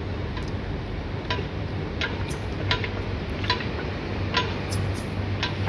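Outdoor park exercise wheel being turned by hand, giving light clicks about once a second over a steady low hum.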